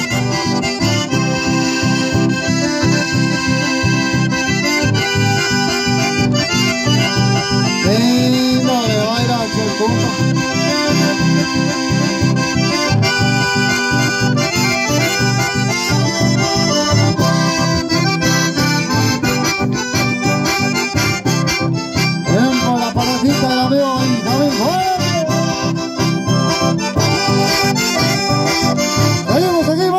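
Two button accordions playing a folk tune together with a strummed acoustic guitar, amplified through microphones, with a steady beat.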